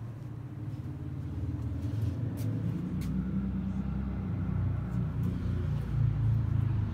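Low, steady rumble of a road vehicle's engine running on the street, growing a little louder about two seconds in.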